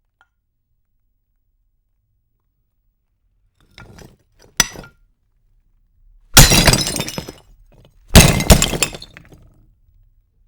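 Glass breaking sound effects: after a few faint ticks and one sharp crack, two loud glass smashes about two seconds apart, each trailing off as the pieces settle.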